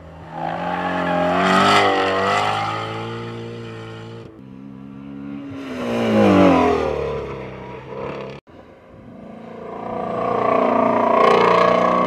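Ford Mustang Shelby GT350R's 5.2-litre V8 at full throttle on a track, revving up and down through the gears. The pitch falls steeply about six seconds in, and the sound breaks off abruptly twice where the shots change.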